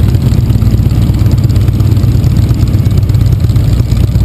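Motorcycle engine running steadily: loud and low, with fast, even pulsing.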